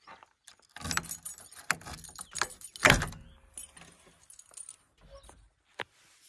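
Metallic clicks and rattling as the cab door of a JCB backhoe loader is unlatched and swung open, with one louder knock near the middle and a few single clicks after.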